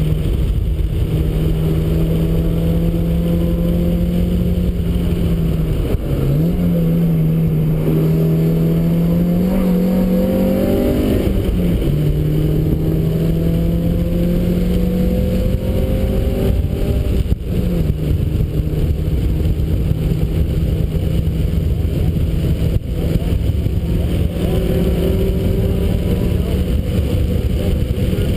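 1991 Mazda Miata's 1.6-litre four-cylinder engine running hard on track, heard from the open cockpit with wind noise. Its note climbs steadily under throttle, drops sharply about twelve seconds in as a gear is changed, and dips briefly about six seconds in and again past seventeen seconds.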